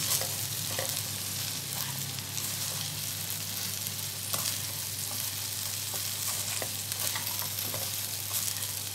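Okra and potato pieces sizzling steadily in hot oil in a metal kadhai, stirred now and then with a spatula that scrapes against the pan.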